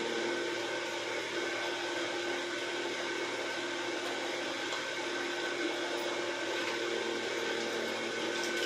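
A steady motor hum with a few fixed tones over a constant whir, unchanging throughout.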